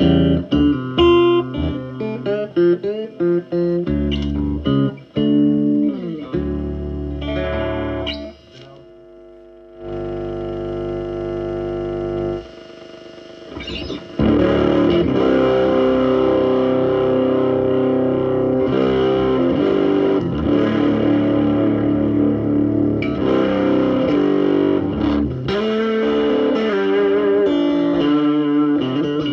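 Electric guitar played through a Davoli D531T push-pull tube amplifier: single picked notes at first, then strummed, sustained chords from about halfway on, with some distortion.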